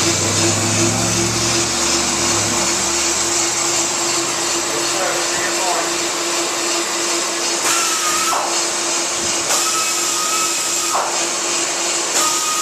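On-car brake lathe running steadily, turning a brake rotor on the car, with a high whine that comes and goes three times near the end.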